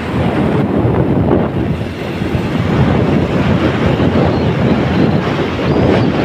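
Wind buffeting a phone's microphone while riding along in a moving vehicle: a loud, steady rush of noise, with traffic and road sound mixed in beneath it.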